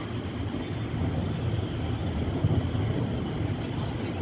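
Low, steady storm rumble of wind and rain weather, swelling a little about a second in and easing near the end.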